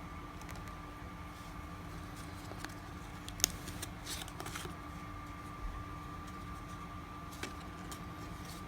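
Trading cards and a wax-pack wrapper being handled: faint rustling with a few sharp clicks about halfway through, over a steady faint hum.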